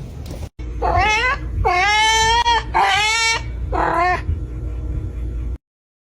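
A cat meowing four times in a row, drawn-out calls that bend up and then down in pitch, the second one the longest.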